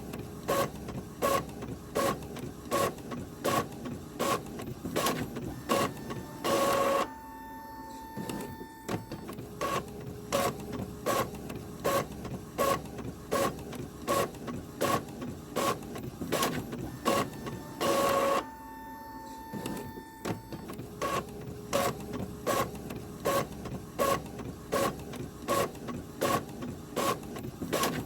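Printer running through a repeating print cycle: sharp mechanical clicks about twice a second, twice interrupted by a longer, louder burst of whirring, then a brief lull before the clicking starts again.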